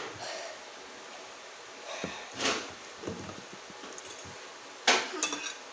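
Eating sounds from instant noodles (pancit canton) being eaten, soft wet slurps and mouth noises, then a sharp clink of cutlery against a dish near the end.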